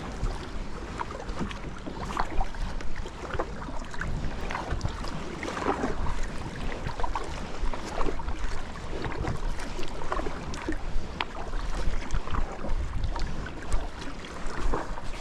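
Kayak paddling: paddle blades dipping and splashing in the water in irregular short strokes, with a low wind rumble on the microphone.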